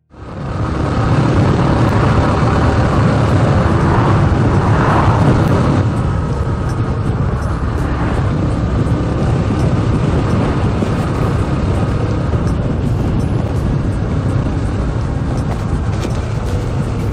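Honda CT125 Hunter Cub's air-cooled single-cylinder engine running steadily under way, mixed with a steady rush of wind and road noise.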